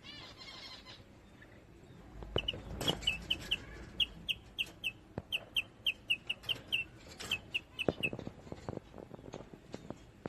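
A parrot giving a quick run of short, high chirps, about three or four a second, for around six seconds, with scattered clicks and taps around it.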